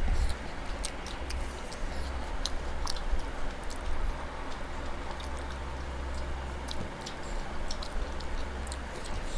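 Close-up eating sounds: chewing with irregular, sharp wet mouth clicks and smacks, over a steady low hum.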